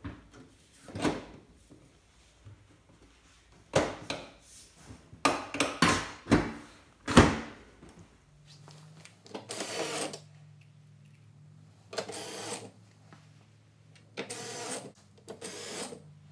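Knocks and clatter against a Bosch dishwasher's stainless front and door for the first half. About halfway in, the reassembled dishwasher starts running: a steady low hum with short bursts of whirring every couple of seconds.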